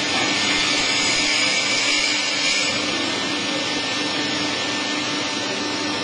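Horizontal baler's electric motor and hydraulic pump running steadily, a constant mechanical noise with a low hum through it.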